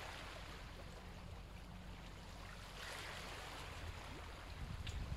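Faint, steady rush of water that swells briefly about three seconds in.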